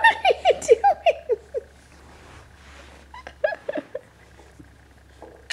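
High-pitched laughter: a run of short 'ha-ha' pulses falling in pitch that trails off in the first second and a half, followed by a few brief voice sounds about three and a half seconds in.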